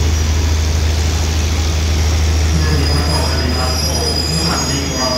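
Passenger train coaches rolling past along the platform: a steady low hum and rumble of the moving train, with a thin, high metallic squeal starting about three seconds in.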